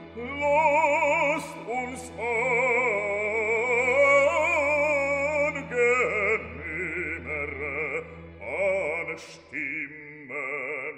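Background music: operatic singing, with long held notes in a wide vibrato over a steady accompaniment.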